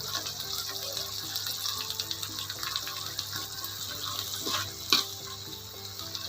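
Water running steadily from a tap into a sink, with a sharp knock about five seconds in.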